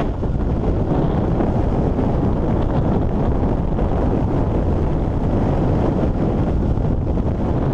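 Steady wind rush buffeting a helmet-mounted camera's microphone on a sport bike at highway speed, the engine and road noise buried beneath it.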